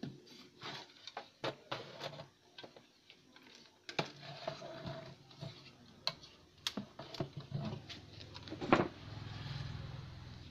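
Handling noise of a CRT TV main board being lifted and turned over on a workbench: irregular clicks, taps and rubbing, with one louder knock about nine seconds in and a low hum after it.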